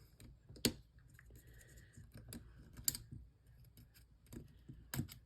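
Small tools and phone parts clicking and tapping during a smartphone teardown: three sharper clicks spaced about two seconds apart, with lighter ticks in between.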